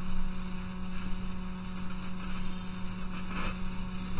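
Steady electrical mains hum and buzz in the microphone signal: a strong constant low tone with a hiss and thin whine above it. A brief soft noise about three and a half seconds in.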